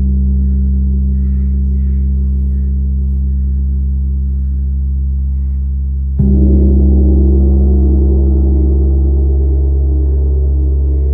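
Large Chau gong ringing with a deep, sustained hum of low tones after a soft-mallet strike, then struck again about six seconds in, the tone swelling slightly louder and ringing on.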